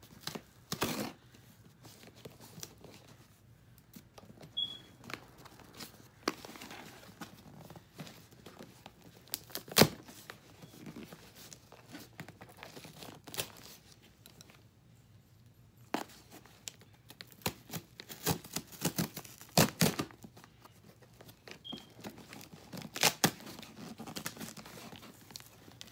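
Cardboard shipping box being pulled and torn open by hand: irregular short rips, scrapes and snaps of cardboard, the sharpest about ten seconds in and a busy run of them a little past halfway.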